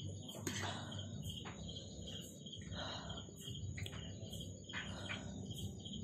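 Insects chirping steadily in a fast, evenly pulsing trill. A few short noisy sounds come through at times over a low steady rumble.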